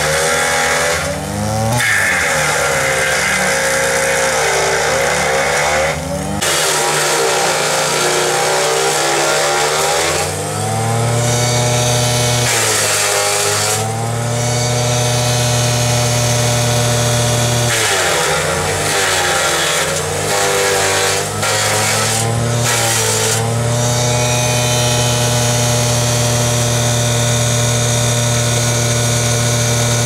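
Truxor DM 5000's engine driving its hydraulic wood chipper. The engine pitch dips and recovers several times as branches are fed in, with stretches of loud shredding noise from the rotor. It runs steadily near the end.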